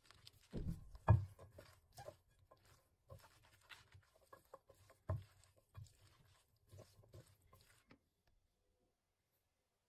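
Salad being tossed in a glass bowl with a silicone spatula: irregular soft knocks and clicks of the utensil against the glass and the ingredients, loudest near the start, stopping about eight seconds in.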